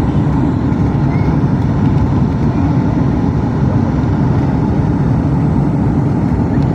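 Boeing 737 MAX's CFM LEAP-1B turbofan engines and rushing airflow heard inside the passenger cabin on the landing approach: a loud, low, steady roar.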